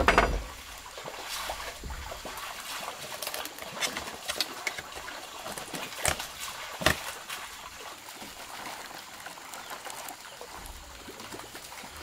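Water trickling and splashing, with a loud splash or knock right at the start and scattered sharp knocks, the clearest about six and seven seconds in.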